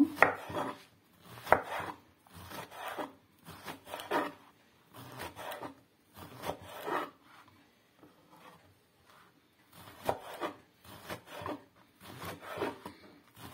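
Chef's knife dicing eggplant into small cubes on a wooden cutting board: irregular knocks of the blade through the flesh onto the board, with a few seconds of fainter cutting a little after the middle.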